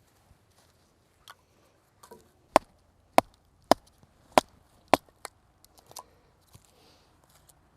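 Wood being chopped with a hand tool: a run of about five sharp, loud strikes, roughly one every half second, with fainter knocks before and after.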